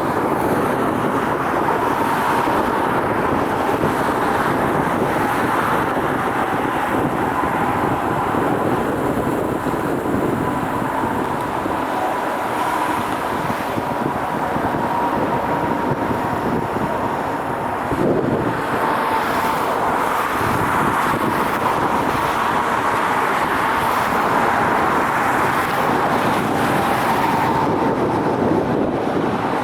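Steady engine and traffic noise with a faint high whine that drops slightly in pitch near the end.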